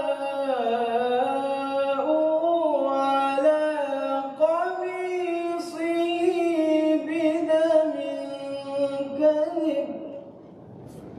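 Male Qari reciting the Quran in melodic tajweed style: a single voice carrying one long, ornamented phrase that glides up and down and holds notes, ending about ten seconds in.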